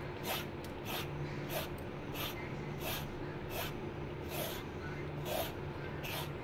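Hand vegetable peeler scraping the skin off a bottle gourd (lauki), short rasping strokes about one and a half a second, about nine in all. A faint steady low hum runs underneath.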